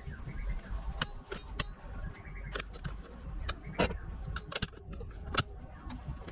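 Irregular sharp clicks and knocks, about eight in all, over a steady low rumble; the loudest comes a little before the four-second mark.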